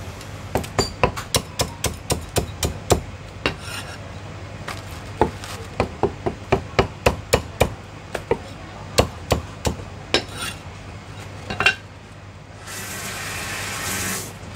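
A cleaver chopping super-crispy roast pork belly on a round wooden chopping block: quick runs of sharp chops, about three or four a second, with short pauses between the runs. Near the end there is about a second and a half of rustling, scraping noise.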